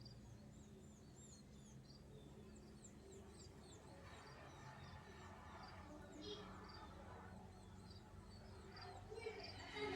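Faint chirping of small birds, many short quick calls repeating throughout, over a low steady hum.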